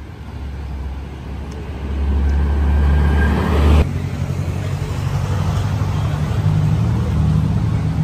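Low engine rumble of a motor vehicle, swelling over the first few seconds and cutting off abruptly near the middle, then a steady low rumble of traffic.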